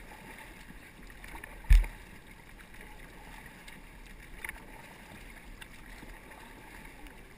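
Paddles dipping and splashing in calm river water beside an inflatable raft. One loud, sharp thump comes about a second and a half in, with a fainter knock a few seconds later.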